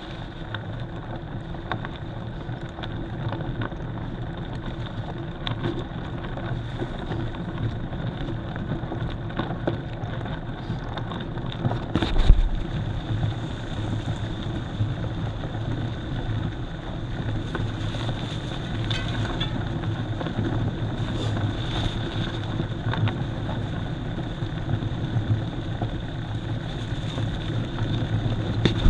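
Mountain bike being ridden on a rough forest road: steady rolling rumble and wind on the microphone, with scattered rattles and knocks and one hard knock about twelve seconds in.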